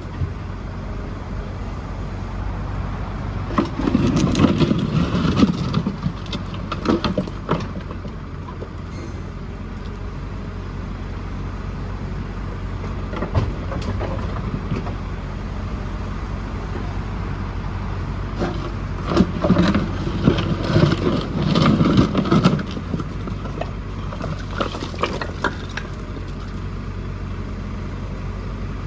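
JCB 4CX backhoe loader's diesel engine running steadily, with two spells of louder clattering and knocking, about four to six seconds in and again about nineteen to twenty-three seconds in.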